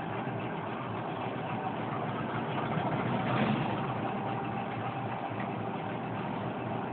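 Diesel locomotive engine idling steadily, swelling slightly in loudness about three and a half seconds in.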